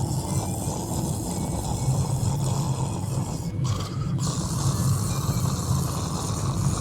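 A sleeping passenger snoring in the cabin of a moving car, over a steady low rumble of road and engine noise.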